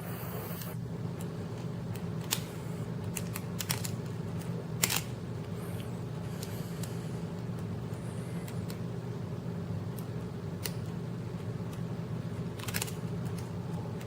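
Scattered small metallic clicks and scrapes of a lock pick and tension wrench working the pins of a pin-tumbler challenge lock, with a steady low hum underneath.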